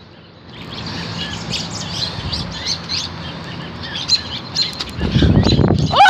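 A small bird chirping over and over in short, high peeps. A louder low rumble sets in near the end.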